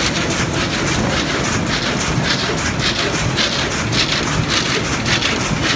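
Van de Wiele carpet weaving loom running at full speed: a loud, steady, rapid rhythmic clatter of the weaving strokes over a dense mechanical rumble.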